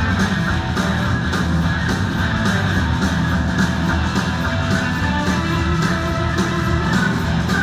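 Live blues-rock band playing: electric guitar over drums with a steady cymbal beat, bass and keyboards, recorded from the audience in an arena.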